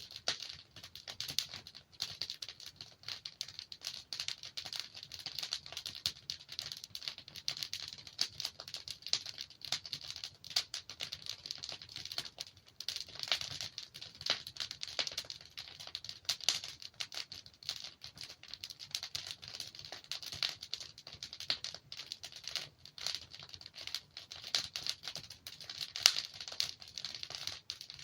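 Logs burning in a fireplace, crackling steadily with dense small snaps and pops, with a sharper pop near the end.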